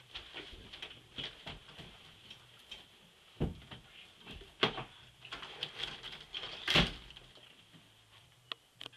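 Scattered, irregular knocks and thumps, the loudest about two thirds of the way in.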